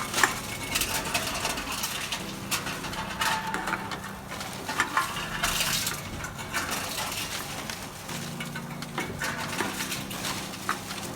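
Repeated clattering and clinking of hard objects, with a steady low hum in places.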